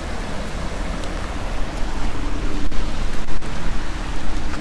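Steady rush of water running over small river rapids, with wind on the microphone.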